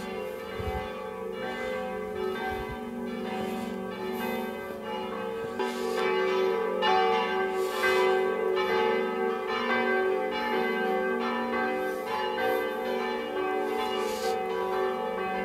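Church bells ringing: several bells struck again and again at an uneven pace, their tones overlapping and ringing on between strokes.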